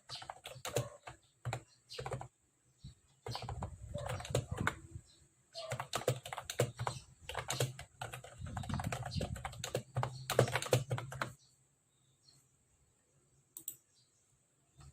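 Steady typing on a Mofii Sweet S keyboard: quick runs of key clicks with short pauses between them, stopping about eleven seconds in, followed by a couple of lone clicks.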